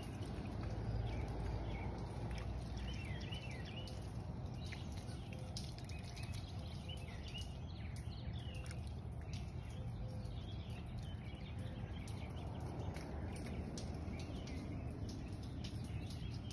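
A dog lapping and nosing at water in a muddy puddle, small wet clicks and drips scattered throughout, while birds chirp now and then over a steady low rumble.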